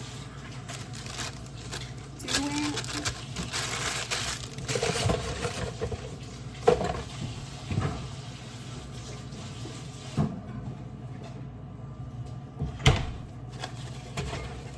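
Tap water running into a sink while hands are washed, starting about two seconds in and stopping about ten seconds in. A couple of sharp knocks come later, one of them near the end.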